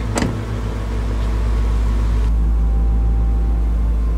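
A pickup truck door shuts with one sharp thud, over the steady low rumble of the truck's engine running.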